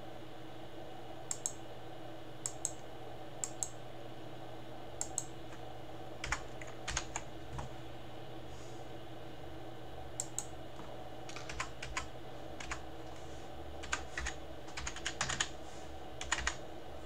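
Computer keyboard being typed on: single keystrokes spaced out at first, then quick runs of keys in the second half, over a steady background hum.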